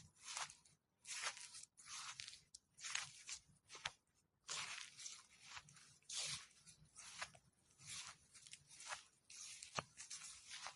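Footsteps walking through fallen leaves, each step a short rustle of leaves, at a steady pace of roughly one step every three-quarters of a second, with a brief pause about four seconds in.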